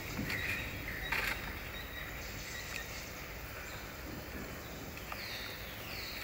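Outdoor woodland ambience: a steady background hiss with a few faint chirps, then two short falling whistled calls near the end.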